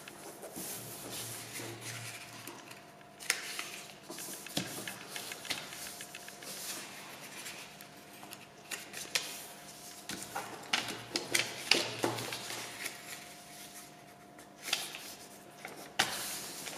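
A square sheet of paper being folded by hand, its corners brought to the centre and the creases pressed flat: irregular rustling and crackling with sharp little creasing clicks, the paper sliding on a tabletop.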